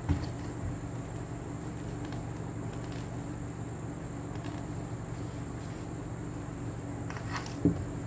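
Steady background hum with a constant high-pitched whine, under faint rustling and light taps of stiff fabric and crinoline being handled on a table. A brief soft knock comes right at the start and another near the end.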